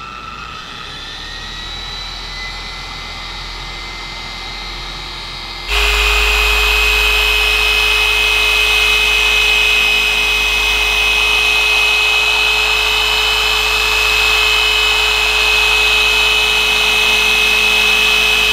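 TORQ dual-action orbital polisher running a compounding pad over oxidized boat gelcoat, cutting a test spot with heavy-cut compound. It runs quieter with a slightly wavering pitch at first, then about six seconds in jumps to a loud, steady whine that holds to the end.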